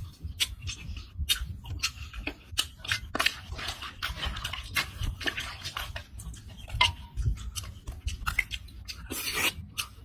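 Cooked crab shells cracking and crunching as they are broken apart by hand and chewed, a quick irregular run of sharp cracks and clicks.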